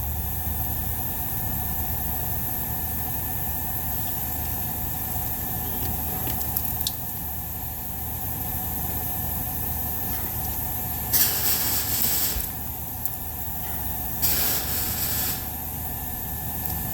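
Two short spraying hisses, each about a second long, over a steady low hum.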